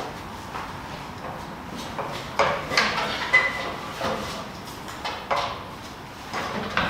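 Handling noises while hanging a light fixture: irregular knocks, clinks and rattles of metal hardware, with a short high squeak about three seconds in.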